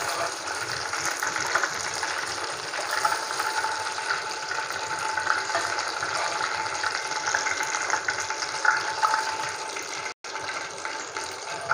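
Besan-and-maida-battered soya-chunk kababs sizzling in hot oil in a kadhai, a steady crackling fry, while they are lifted out with a steel slotted spoon. The sound cuts out for a moment about ten seconds in.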